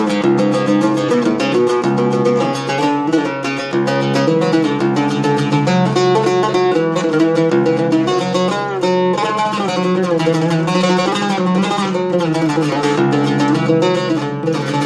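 Oud with a black walnut bowl and two-piece cedar soundboard being played: a continuous run of quickly plucked notes over steadily ringing low strings, as a tone test of the newly built instrument.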